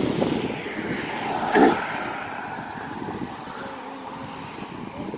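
A vehicle passing on the street, its noise swelling to a peak about a second and a half in and then slowly fading.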